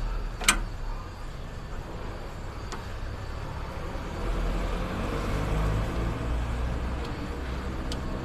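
Steady low rumble of an idling vehicle engine, with one sharp click about half a second in.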